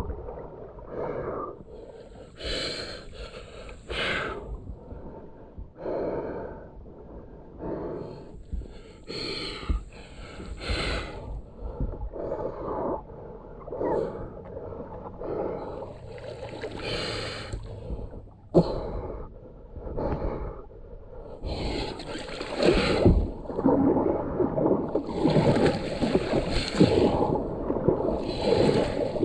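A kayaker breathing hard, with loud gasping breaths in and out every second or two, mixed with the swish and splash of paddle strokes in the water. The breathing grows louder in the last third.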